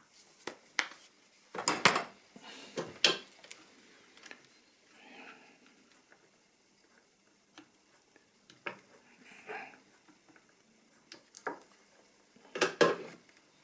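Irregular clicks, knocks and clatters of small hard parts being handled as the battery is taken out of a small portable radio, loudest about two seconds in and again near the end.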